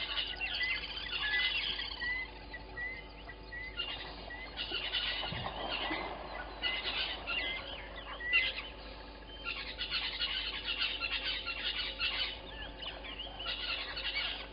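Several birds chirping and calling together. One bird repeats a short rising note about twice a second over the first few seconds, and there is a brief lower sound about five seconds in.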